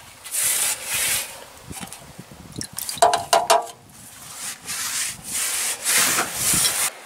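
Rough rubbing strokes, several in a row, with a brief pitched squeak-like patch about three seconds in.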